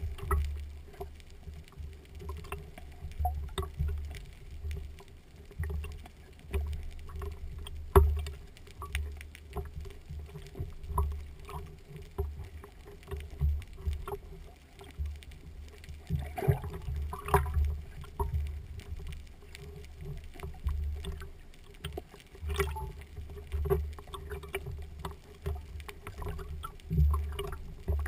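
Underwater ambience on a freedive: a muffled, surging low rumble of water movement with scattered small clicks and crackles and a faint steady hum, and one sharp knock about eight seconds in.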